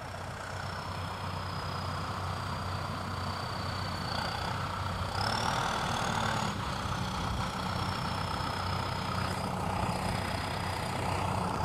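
Tractor engine running steadily at low speed, with a thin high whine that rises briefly about five seconds in.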